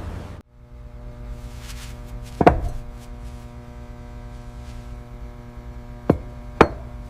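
A steady low hum with three sharp knocks: one about two and a half seconds in, then two close together near the end.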